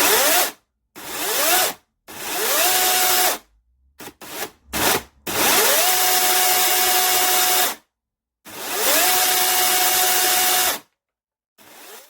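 Bosch UniversalChain 18 cordless electric chainsaw running in repeated bursts: each time the motor spins up with a rising whine, holds a steady pitch for about one to three seconds, then stops, about six times.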